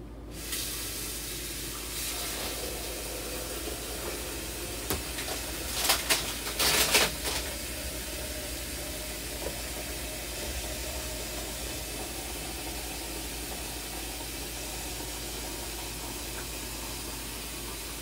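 Tap water running steadily from a faucet, filling a pitcher to top up the dishwasher's reservoir, with a few knocks and clatters of the pitcher about six and seven seconds in.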